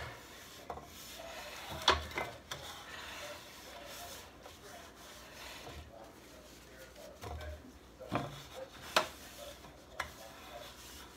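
Hands rubbing and wiping around the rim of a metal muffin pan to clear off spilled oil, with several sharp taps against the tin along the way.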